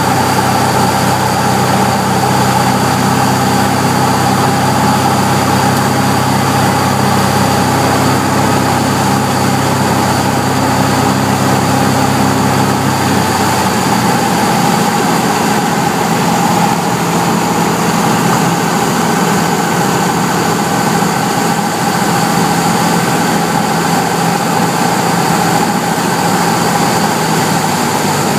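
Cabin noise of a Cessna 172B in flight: the Continental O-300 six-cylinder engine and propeller running steadily over a constant airflow hiss. About halfway through, the engine's low note drops away as power is reduced on the approach to land.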